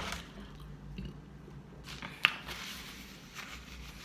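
Soft, scattered eating sounds, with one sharp click that rings briefly about two seconds in.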